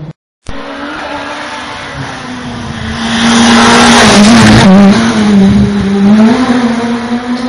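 Škoda Fabia S2000 rally car at full throttle, growing louder as it approaches and passing close by about four seconds in. The engine note dips briefly as it goes past, then holds high revs as the car carries on up the road.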